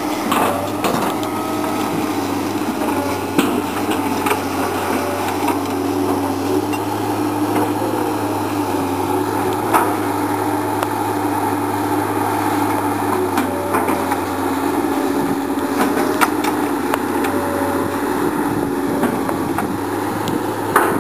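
Komatsu PC220 hydraulic excavator running under load, a steady diesel engine and hydraulic hum, with scattered sharp knocks as the bucket digs into brush and soil.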